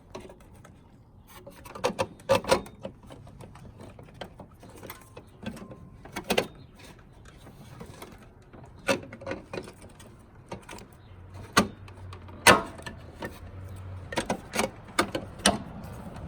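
Irregular plastic clicks and knocks of an LED turn signal bulb and its socket being handled, inserted and twisted into a Jeep's front turn signal housing.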